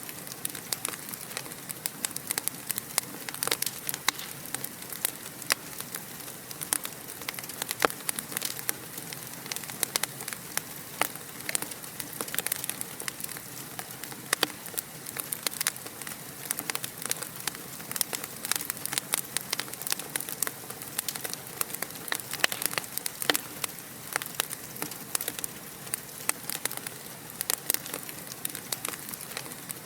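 Fire crackling steadily, with many small irregular crackles and pops over a soft hiss.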